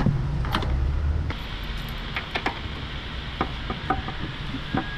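Scattered light clicks and knocks of tools and metal engine parts being handled. A low hum under them cuts off about a second in.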